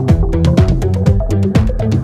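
Background music with a steady drum beat and a stepping bass line.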